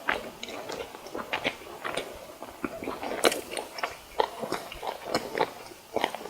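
Close-miked biting and chewing of fried snacks, with many short crackly crunches and a sharper bite about three seconds in.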